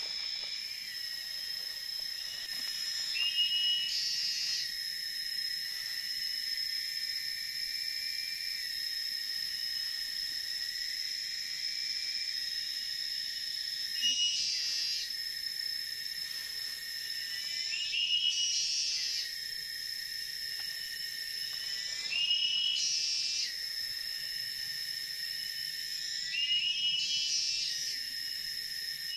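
Tropical forest insects holding a steady, high-pitched whine. About every four seconds a short call climbs in pitch in steps.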